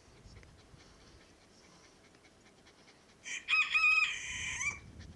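A rooster crowing once, about three seconds in: a single call of about a second and a half that ends in a short slide.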